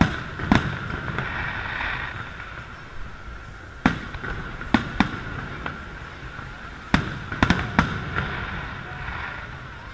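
Aerial fireworks shells bursting overhead: about ten sharp bangs at uneven intervals, several coming in quick runs.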